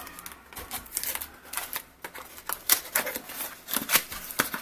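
A small cardboard box being opened by hand: its flaps scrape and snap in irregular clicks and rustles.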